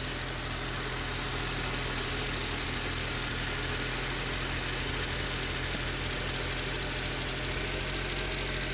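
Honda CR-V's 2.4-litre four-cylinder engine idling steadily.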